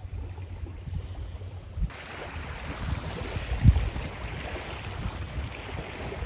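Wind buffeting the microphone over the wash of waves along a shoreline, with a hiss that widens about two seconds in and a low thump near the middle.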